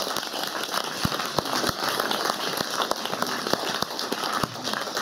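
Audience applauding steadily, with a few louder single claps standing out from the patter of many hands.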